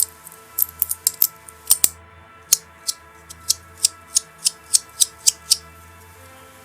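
Spacem Sniper metal fidget toy clicking sharply, first in an irregular cluster, then in a steady run of about three clicks a second that stops about two-thirds of the way in. Background music plays underneath.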